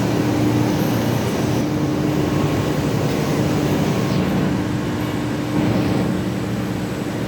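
Absorbent cotton processing machine running steadily: a continuous loud mechanical noise with a steady low hum.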